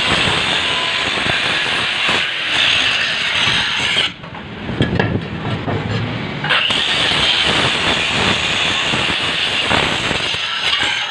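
Angle grinder with an abrasive disc grinding down weld beads on a steel bar. The grinding stops about four seconds in, with a few knocks as the bar is turned over, and starts again about two and a half seconds later.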